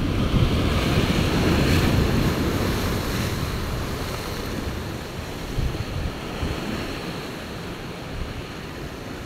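Sea surf breaking and washing over shoreline rocks, with wind rumbling on the microphone. The surge is loudest in the first few seconds and then eases.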